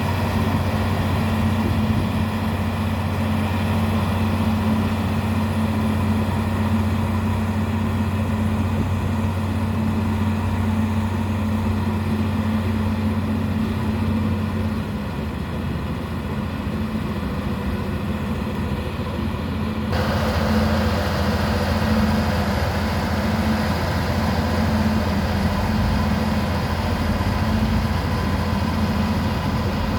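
Heavy diesel engine of a construction machine running steadily, a deep even drone. Its note shifts about halfway through, and the upper sound changes abruptly about two-thirds of the way in.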